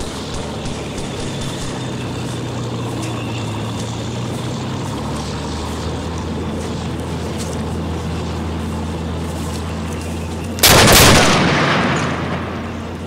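A steady low drone, then near the end a sudden loud blast that dies away over about two seconds, a dubbed-in gunfire or explosion effect for the shoot-out.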